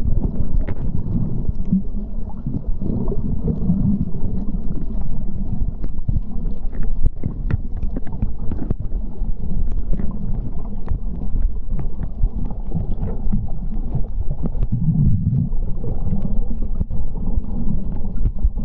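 Underwater sound on a reef dive, recorded by the camera: a low, muffled rumble of moving water that swells now and then, with scattered sharp clicks and crackles.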